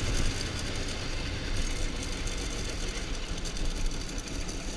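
Dirt bike engine running steadily.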